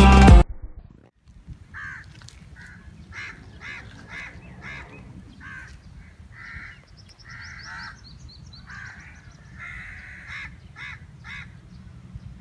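Background music cuts off about half a second in. Then crows cawing again and again in short harsh calls, with a small bird's quick high chirps about seven seconds in.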